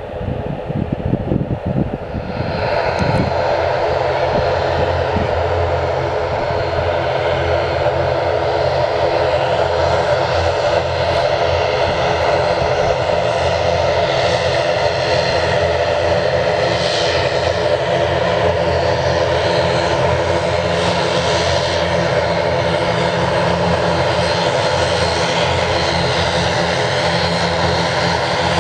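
ATR 72-500 turboprop with two Pratt & Whitney PW127 engines going up to takeoff power about two and a half seconds in, then a steady, loud propeller drone with a stack of steady tones through the takeoff roll.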